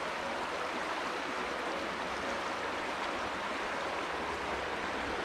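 Steady rush of a river's flowing water, even and unbroken.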